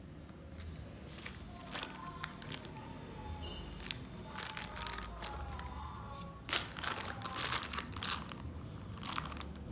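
Packaging crinkling and rustling as it is handled, in irregular crackles that are loudest and thickest about two-thirds of the way through.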